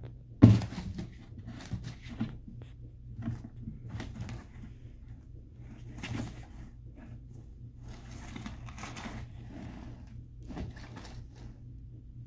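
A cat bumping, scraping and shoving an empty cardboard box across a hardwood floor as it paws at it and pushes its head into a hole in the end: scattered knocks and cardboard rustles, the loudest a sharp knock about half a second in. A steady low hum runs underneath.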